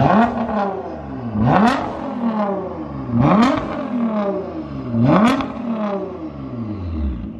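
Nissan GT-R R35's twin-turbo V6 revved through a Fi Exhaust valvetronic catback and catless downpipe with the exhaust valves open. Four quick throttle blips, one about every one and a half to two seconds, each rising sharply and then falling back toward idle.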